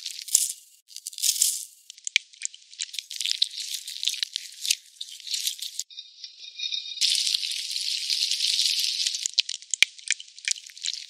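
Kitchen sounds cut together, thin and high with no low end: rapid scraping and clicking of utensils working a thick mash in a glass bowl, then a steady frying hiss from a pan for about two seconds a little past the middle, then scattered clicks and scrapes again.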